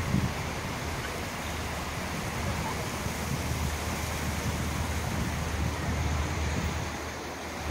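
Steady hiss of highway traffic running alongside the tracks, with wind gusting on the phone's microphone as a low rumble that swells and fades.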